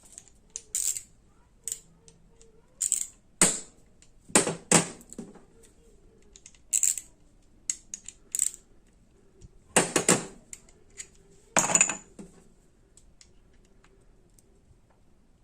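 Metal half-inch ratchets being handled, with irregular metallic clinks and knocks as they are picked up and set down on a hard surface, a dozen or so spread out, the sounds stopping for the last few seconds.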